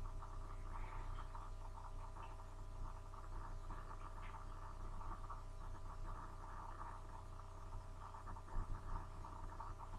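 Low steady electrical hum with a faint flickering crackle: the background noise of the recording microphone, with no other sound.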